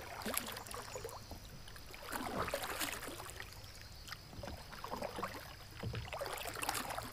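Kayak paddling: a double-bladed paddle dipping into and pulling through the water on alternate sides, with a splash and drip every couple of seconds.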